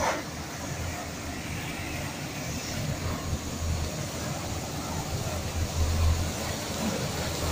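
Automatic train wash plant spraying water onto a slowly passing passenger coach: a steady hiss of spray over an uneven low rumble, with one short sharp sound at the very start.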